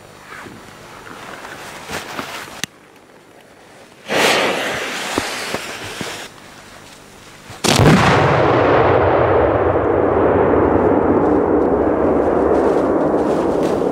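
Large firework shells exploding. A short hiss cuts off, then a sudden loud blast comes about four seconds in, and a much bigger explosion follows near eight seconds. The big explosion's rumble rolls on loudly for several seconds, its hiss dying away.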